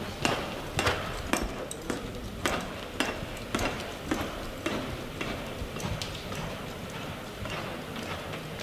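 A horse's hooves striking the dirt arena footing as it lopes, in a regular beat of about two strikes a second that grows softer in the second half.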